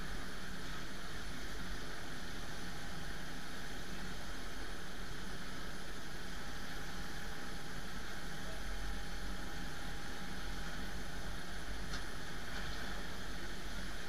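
Steady drone and hiss of aircraft and ground equipment at an airport gate, with a couple of faint clicks near the end.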